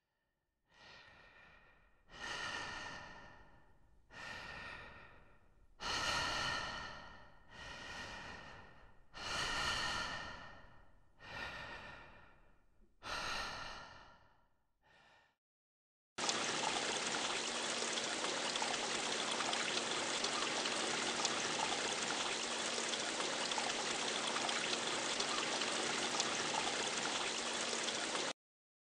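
A person's breath: a series of about seven heavy sighing exhales, each starting sharply and fading away. Then a steady hiss with a faint low hum, which cuts off suddenly near the end.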